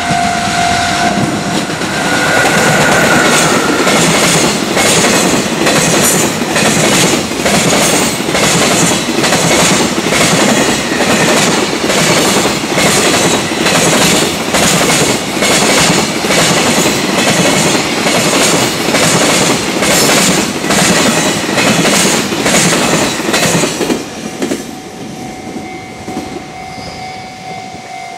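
A level-crossing warning bell rings, and then a long container freight train passes close by. Its wheels clatter over the rail joints in a steady rhythm for about twenty seconds, then the sound drops away suddenly as the last wagon clears. The crossing bell rings on again near the end.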